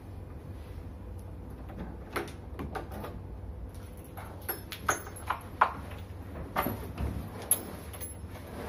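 Hotel room door's handle and lock being worked: a run of small metallic clicks and clunks, the sharpest about halfway through and again near the end, over a steady low room hum.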